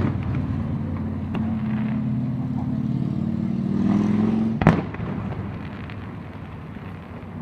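Fireworks going off in single sharp bangs: one right at the start, a faint one about a second and a half in, and the loudest about two-thirds of the way through. A motor vehicle's engine runs steadily underneath and fades away after the loud bang.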